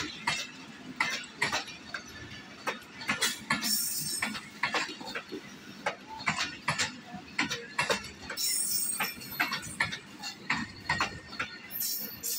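Pakistan Railways passenger coaches rolling past, their wheels clattering over the rail joints in an irregular string of sharp clicks and knocks, with a few brief high hissing sounds.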